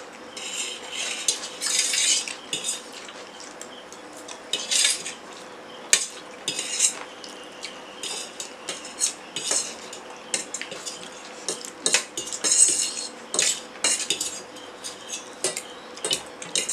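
Metal fork clinking and scraping against stainless steel plates while noodles are eaten: irregular sharp clicks with short scrapes in between.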